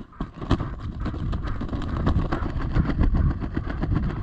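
Steady rustling and crackling of dry field cover, many short crackles a second, over a low rumble of wind buffeting the microphone.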